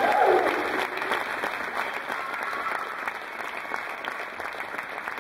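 Audience applauding, many hands clapping at once, gradually dying down. A single short falling tone sounds right at the start.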